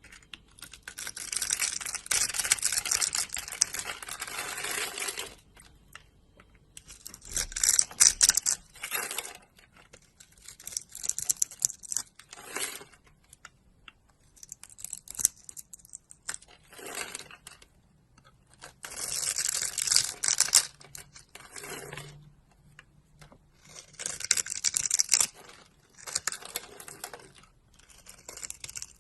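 Knife cutting through dry bar soap: crisp crackling strokes in repeated bursts, one long stretch of about five seconds at the start, then about ten shorter bursts of a second or two with short pauses between.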